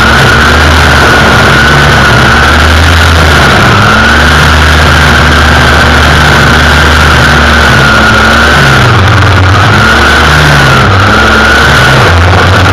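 String trimmer (weed eater) engine running steadily at high speed while its line cuts through weeds, a loud whine that wavers slightly in pitch.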